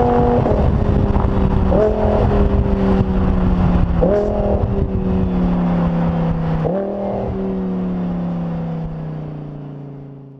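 Lamborghini Huracán's V10 through a GMG aftermarket exhaust, heard at the tailpipes as the car slows: the note falls steadily in pitch and jumps back up several times with the shifts, then fades out near the end.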